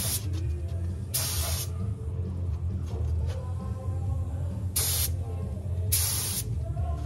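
Compressed-air gravity-feed spray gun spraying epoxy primer, hissing in short bursts of about half a second as the trigger is pulled and released, four times. A steady low hum runs underneath.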